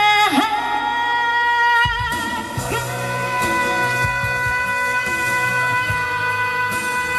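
Music: the closing bars of a Mandarin pop song, one long held note over the backing track.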